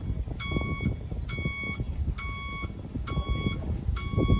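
An electronic warning beeper sounding a steady series of short, high single-pitched beeps, about one a second, five in all, over low rumbling and knocking.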